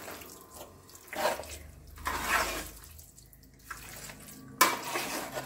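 A hand mixing oily, spice-coated lemon pickle in a large aluminium pot: wet squelching swishes in three separate strokes, the last one the loudest.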